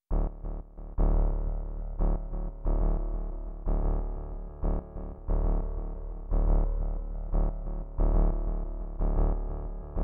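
Instrumental music beginning out of silence, with deep bass notes and chords struck roughly once a second, some with quick pick-up notes before them.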